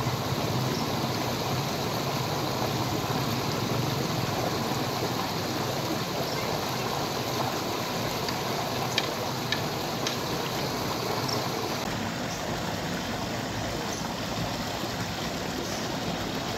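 Shallow water rushing steadily down a concrete slope and through a hanging mesh net, with a couple of faint clicks about nine to ten seconds in.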